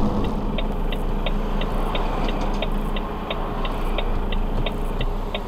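Truck's turn-signal indicator ticking evenly, about three ticks a second, inside the cab over the steady hum of the engine.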